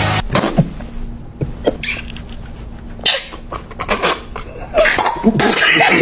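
A man's stifled laughter: short snorts, sniffs and squeaky bursts through a hand held over his mouth, coming in scattered fits.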